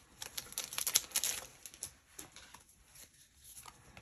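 Magic: The Gathering trading cards being handled and flipped through by hand: quick soft clicks and rustles of card stock, busiest in the first second and a half, then only a few faint ticks.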